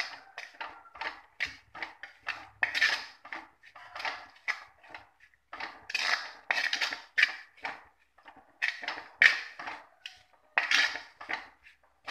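Metal spoon stirring and scraping a dry stir-fry of cooked agathi (sesbania) flowers around a pan, about three quick scrapes a second, some louder than others: the grated coconut being mixed in at the end of cooking.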